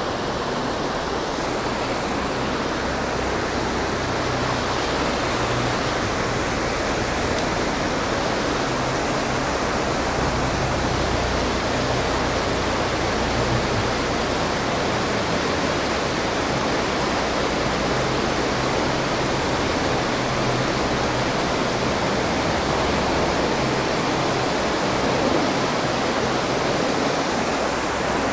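Steady, loud rush of water pouring through a dam, an even noise that doesn't let up.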